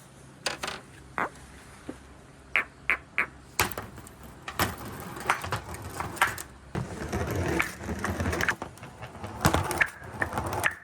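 Balls rolling along a wooden marble-run track and gutter chute and clicking against each other as they collect. A few separate sharp clicks come first, then a rolling rumble full of clicks builds from about four seconds in.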